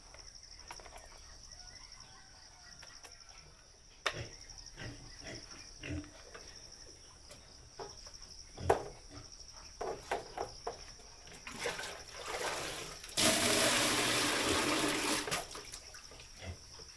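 Scattered knocks and clatter, then a loud rush of water for about two seconds near the end, over a steady high chirring of insects.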